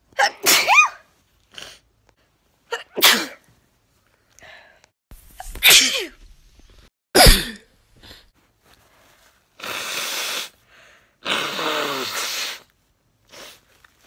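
A young woman sneezing, four sharp sneezes a few seconds apart, in an allergy sneezing fit. Near the end come two longer rushes of air, about a second each.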